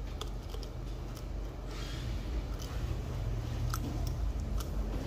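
A metal dental instrument working at a fresh molar extraction socket, giving scattered light clicks and a brief scrape, over a steady low hum.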